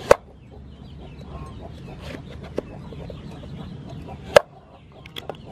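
Cleaver chopping through pumpkin onto a thick wooden chopping board: two loud chops about four seconds apart, with a few lighter knocks between and near the end. Chickens cluck in the background.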